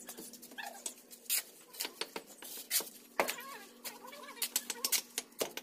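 Irregular sharp taps and knocks of bricklaying: a brick hammer and clay bricks knocking on the brick wall as the bricks are set and trimmed. A faint steady hum and low voices run underneath.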